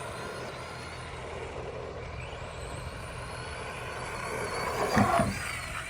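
Arma Granite Boost RC monster truck driving, its brushed 550 motor whining faintly and rising and falling with the throttle over a steady rumble of tyres on pavement. About five seconds in comes a louder, short clatter.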